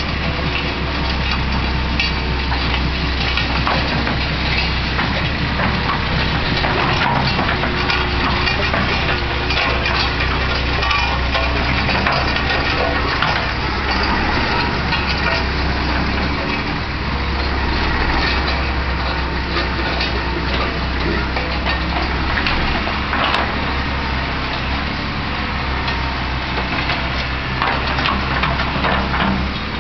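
Diesel engine of an old Fiat-Hitachi EX135 excavator running steadily under load while its bucket spreads and scrapes topsoil, with scattered knocks and clanks. A ride-on road roller passes close by about halfway through.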